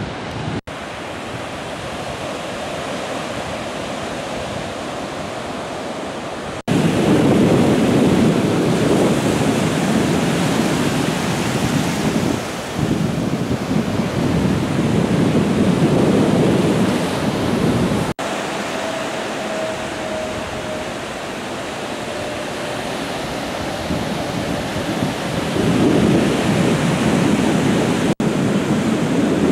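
Ocean surf breaking and washing up on a sandy beach, with wind buffeting the microphone. The sound jumps abruptly a few times, growing louder and rougher after several seconds.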